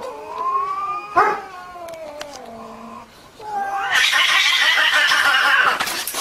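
Two domestic cats in a standoff: a long, wavering yowl with a sharp knock about a second in, then a loud, harsh screech from about four seconds as one cat swats at the other.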